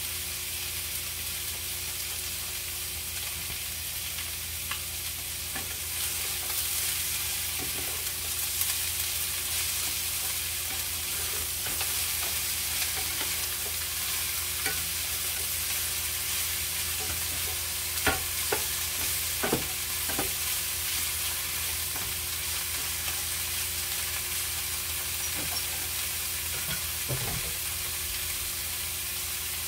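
Beef and broccoli sizzling in a frying pan while a wooden spatula stirs and scrapes through them. The sizzle grows louder about a fifth of the way in, and there is a cluster of sharper knocks of the spatula against the pan about two-thirds of the way through, with another near the end.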